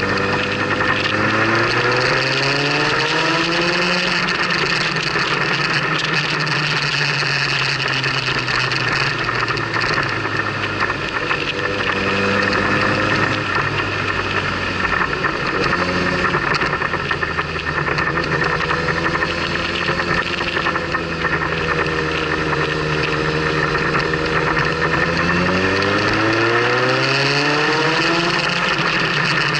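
Motorcycle engine under way, its revs climbing twice as it accelerates, once about a second in and again near the end, with a steadier, easing stretch between. A steady rush of wind noise runs underneath.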